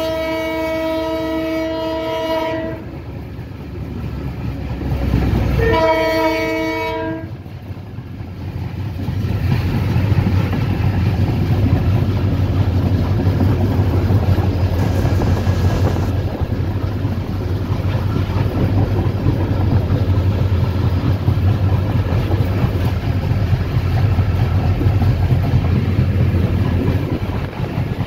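Multi-tone chord horn of the train's EMD GT26CW diesel locomotive, sounding in two blasts: one ending a few seconds in and a shorter one about six seconds in. After that comes the steady low rumble and wheel clatter of the train picking up speed, heard from aboard.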